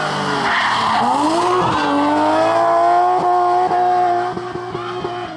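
Rally car engine coming off the throttle into a corner, then accelerating hard with a short tyre squeal, its note climbing and holding. Near the end it lifts off with a run of sharp exhaust pops as it drives away.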